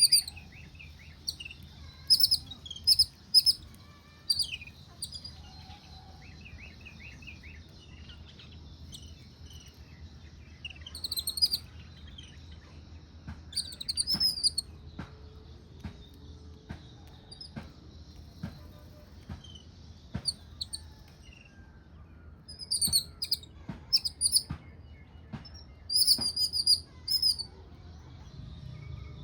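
Small birds chirping in quick runs of short, sharp, high notes, with pauses between the runs and a softer trill among them.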